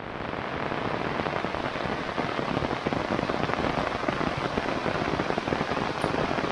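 Heavy rain pouring down: a dense wash of falling water with many individual drops striking close by.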